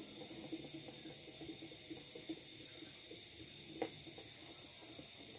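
Faint small clicks and scraping of a screwdriver driving screws back into a plastic electric fan housing, with one sharper click about four seconds in, over a steady high-pitched hiss.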